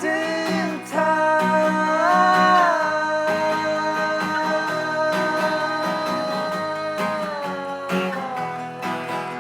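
Live acoustic guitar strumming steadily under a sung word, "wasting", drawn out into one long held vocal note that swells briefly about two seconds in and eases down in pitch near the end.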